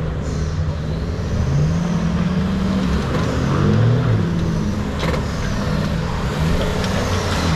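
Volkswagen Touareg 4x4 engine working under load on a muddy off-road climb, its revs rising and falling several times as the driver works the throttle.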